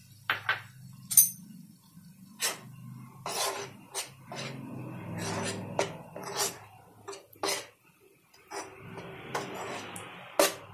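Steel spoon stirring chickpea flour in a non-stick frying pan as it is roasted: repeated sharp taps and clicks of the spoon on the pan, with two longer stretches of gritty scraping.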